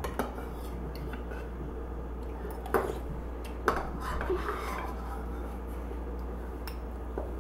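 Metal spoon scraping and clinking in a soup bowl, with a few sharp clinks, over a steady low hum.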